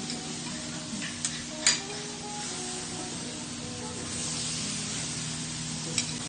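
Diced steak sizzling on a hot teppanyaki iron griddle, a steady hiss, with a few sharp metal clicks of the chef's spatulas on the plate, the loudest about one and a half seconds in and another near the end.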